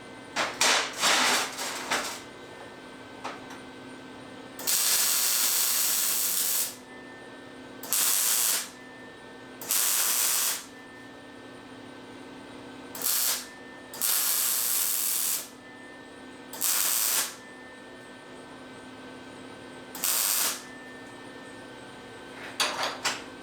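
MIG welder laying short beads on stainless steel: a string of hissing, crackling bursts, a few brief ones at first and then about seven lasting from half a second to two seconds, with a steady hum between them.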